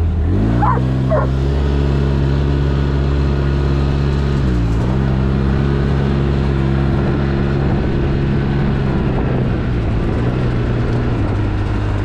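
Polaris RZR 800's twin-cylinder engine, its rod bearings newly replaced, pulling the side-by-side along a dirt road: it revs up in the first second, eases off briefly near the middle, then picks up again and holds steady. A dog barks twice about a second in.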